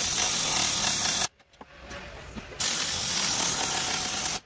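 Pneumatic impact wrench running in two bursts on a front suspension bolt at the steering knuckle, the first about a second long, the second nearly two seconds after a short pause.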